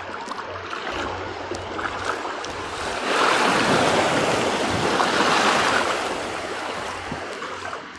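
Shallow seawater churning and washing around a foot, right at the phone's microphone. A louder rush of water swells about three seconds in and fades over the next few seconds.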